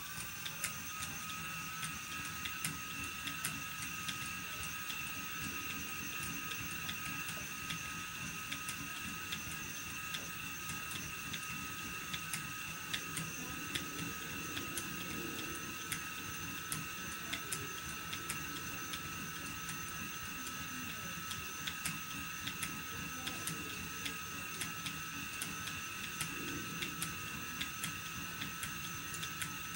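Phoenix electric spinning wheel running steadily while cotton is spun: a continuous high motor whine with its spinning flyer, and small clicks scattered throughout.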